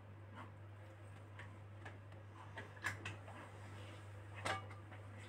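Quiet kitchen room tone: a steady low hum with a few faint, scattered clicks.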